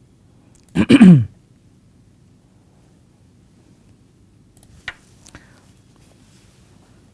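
A man clears his throat loudly about a second in: a short, two-part rasp falling in pitch. About four seconds later come two faint computer-mouse clicks.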